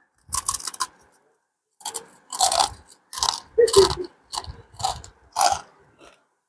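A crisp murukku, the fried rice-flour spiral snack, crunching as it is bitten: one snapping bite just after the start, a short pause, then a run of about seven chewing crunches, roughly two a second.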